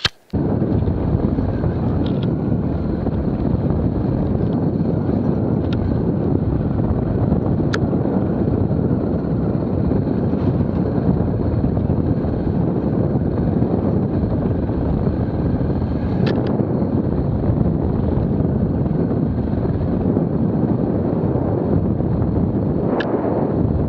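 Dirt-bike ride heard from a helmet-mounted camera: loud, steady wind rushing over the microphone with the motorcycle running underneath, and a few faint ticks.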